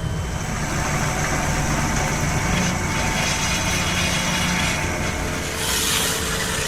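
Diesel engine of a John Deere 7830 tractor running steadily with a low hum, a harsher hissing noise joining about five and a half seconds in.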